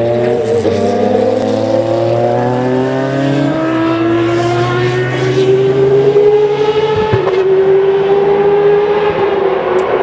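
Group C prototype race car's engine accelerating hard, its pitch climbing steadily and dropping sharply at upshifts about three and a half and seven seconds in.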